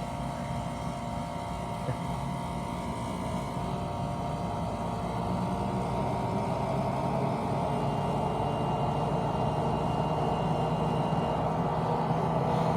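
A compressor running with a steady hum, growing gradually louder.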